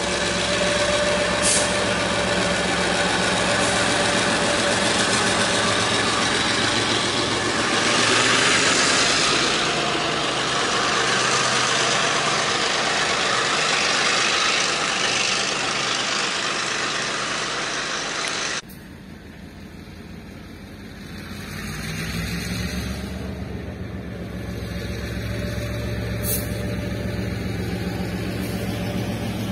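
Diesel-hauled train of passenger coaches rolling past, with a loud, steady noise of wheels on rails. About two-thirds of the way through it cuts off suddenly; after that a diesel locomotive's low engine drone grows louder as it approaches.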